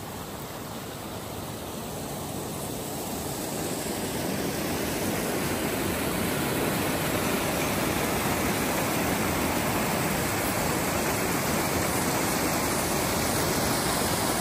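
Water rushing and splashing down a small rocky cascade in a creek. It is a steady rush that grows louder over the first several seconds, then holds level.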